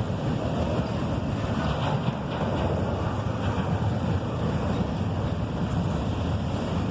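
Freight train rolling past, a steady low rumble of wheels on rail, with wind on the microphone.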